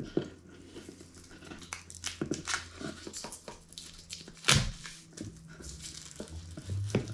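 A knife blade slicing and scraping through clear plastic wrap on a wooden box, with the film crinkling and tearing in short scratchy strokes. A sharp snap about four and a half seconds in is the loudest sound.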